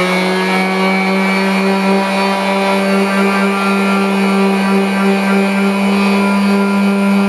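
Electric quarter-sheet orbital sander running steadily at full speed with 220-grit paper, smoothing the face of a birch plywood puzzle blank: a loud, even motor hum with a whine above it.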